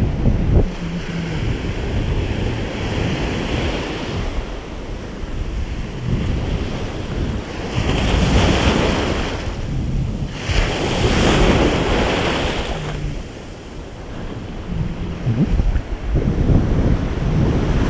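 Small surf breaking on a sandy beach, the rush of water rising and falling, with two louder breaking waves around the middle. Wind buffets the microphone throughout as a low rumble.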